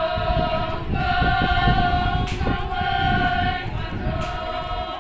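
A group of Konyak Naga women singing a traditional song together in unison, holding long notes in phrases of about a second each with short breaks between, over a low rumbling noise.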